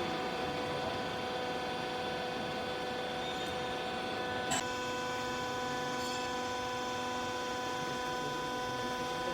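Hydraulic clothing baler's electric motor and pump running with a steady hum of several even tones. There is a single sharp click about four and a half seconds in, after which a lower tone joins the hum.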